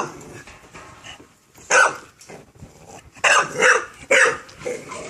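Exotic Bully dog barking: one bark about two seconds in, then three in quick succession about a second and a half later.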